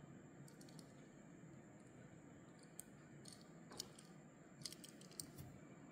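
Near silence with faint scattered clicks of a Hot Wheels die-cast Toyota GR Supra with a plastic chassis being turned over in the fingers, with a quick run of several clicks about five seconds in.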